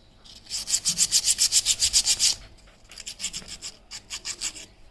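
Motorcycle disc brake pad rubbed back and forth on sandpaper in quick, even strokes, about nine a second. A loud run of strokes is followed by a short pause, then a weaker run. The pad's friction face is being scuffed clean.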